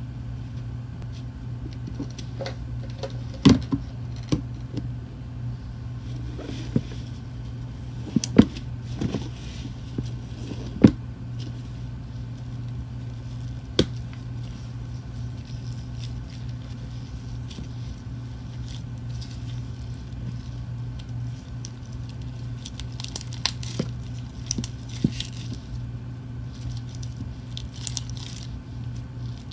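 Clear slime being squished, pulled and pressed into a bin of small polystyrene foam beads, giving scattered sharp crackles and pops and a rustle of beads. A steady low hum runs underneath.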